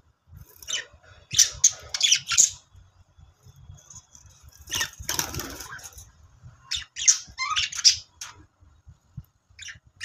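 Budgerigars chirping and squawking in quick clusters of short, high calls, with a longer, noisier burst about five seconds in.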